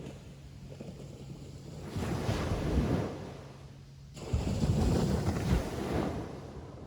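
Ocean waves breaking on a beach: two surges of surf, the first about two seconds in and a louder one about four seconds in, each swelling and then washing away.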